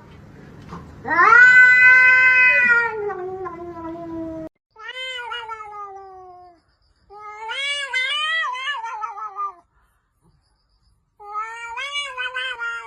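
A cat meowing in long, drawn-out calls, four in all, each one rising and then falling in pitch.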